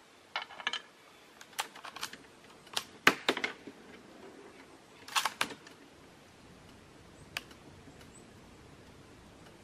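Metallic clicks and clacks from a CZ 527 bolt-action rifle as its bolt is worked, in several short clusters, the loudest about three seconds in.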